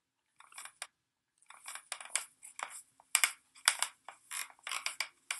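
Wooden floorboards squeaking and creaking: a floor-squeak sound effect, a string of short irregular creaks.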